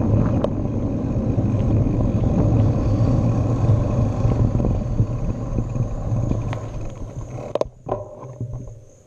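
Wind and road rumble on a handlebar-mounted action camera's microphone as a bicycle rolls along, dying away over the last few seconds as the bike slows to a stop, with a couple of sharp clicks just before the end. A steady high chirring of crickets runs underneath.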